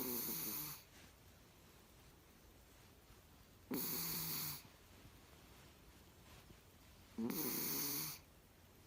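A sleeping cat snoring: three slow snores, each about a second long, roughly three and a half seconds apart, with a low rasp under a breathy hiss.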